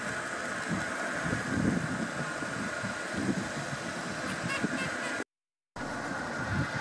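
Outdoor background noise: a low, uneven rumble under a steady high hum, with a few faint high chirps about four and a half seconds in. The sound drops out completely for about half a second just after five seconds.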